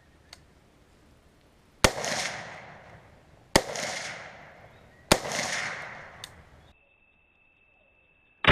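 Three shots from a 5.56 AR-15 rifle fitted with a quarter-inch three-slot muzzle brake, fired about a second and a half apart. Each is a sharp crack followed by a rolling echo. The sound cuts off near the end.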